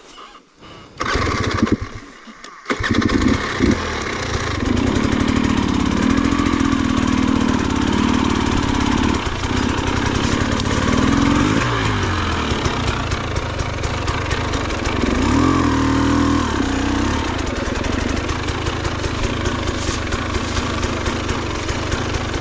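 Enduro dirt bike engine starting about a second in, stumbling briefly, then catching and running, with two short rises in revs near the middle.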